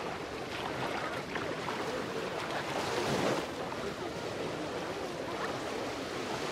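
Beach ambience: a steady wash of small waves and lapping sea water, with faint distant voices.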